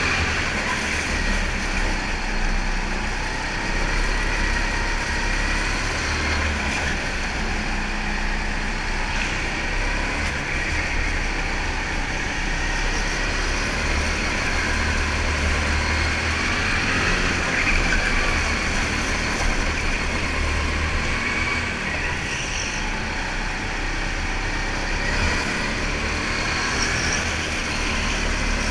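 Rental go-kart driven at speed on an indoor track, heard from onboard: the kart's motor runs continuously, its note rising and falling with speed through the corners, over a steady low rumble.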